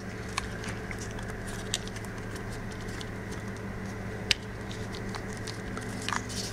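A few faint, sharp clicks and taps of a small plastic smartwatch and its battery being handled, over a steady low hum.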